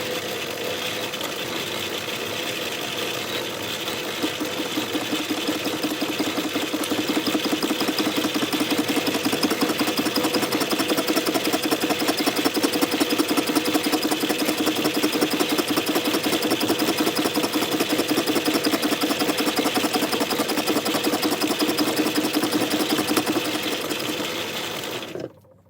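Logan 210 metal lathe turning a square block of mild steel held in a four-jaw chuck, the cutting tool taking a cleanup cut. Steady machine noise with a fast, even pulsing, louder from a few seconds in, cutting off sharply near the end.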